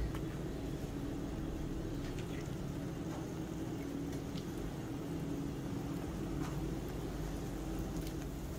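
Thin buckwheat batter sizzling in oil in a nonstick frying pan, a steady hiss with a low hum underneath and a few faint ticks.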